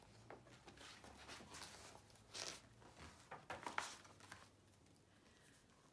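Soft rustling and crinkling of a large picture book's pages as it is handled and a page is turned, in a run of short swishes that is loudest about two and a half and four seconds in.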